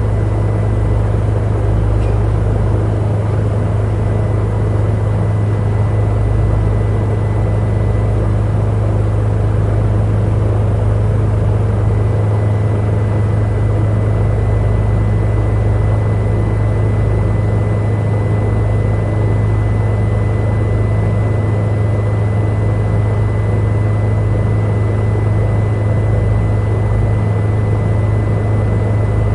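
Helicopter heard from inside the cabin in steady flight: a loud, even drone of engine and rotor with a deep hum and a thin steady whine above it.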